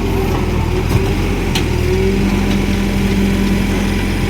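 Diesel engine of a Cat wheeled excavator running steadily under work, with a steady low tone joining in about halfway through and a couple of faint clicks.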